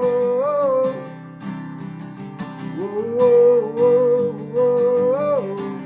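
Worship song with strummed acoustic guitar: a voice sings two long drawn-out phrases, the second ending about five and a half seconds in, as the song winds down.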